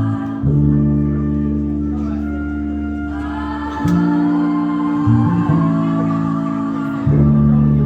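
Hip-hop backing track: sustained keyboard chords over a deep bass, changing chord four times.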